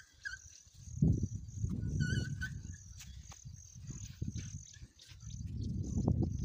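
Insects chirping in short high pulses, about three a second, over two bouts of low rumbling noise, the first about a second in and the second from about five seconds. A short high call sounds near the two-second mark.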